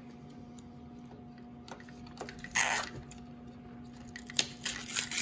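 Small plastic surprise packet being handled and opened: a few light clicks and taps, a short rustle about two and a half seconds in, and more clicks and rustling near the end.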